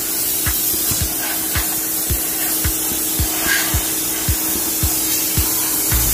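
Compressed-air spray gun with a red canister hissing steadily as it blasts cleaner over a car's engine bay.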